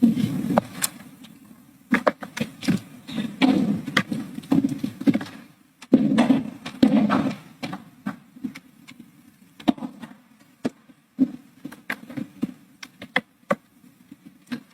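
Irregular rustling and sharp clicks close to a microphone, like handling noise or papers being moved, with no steady tone.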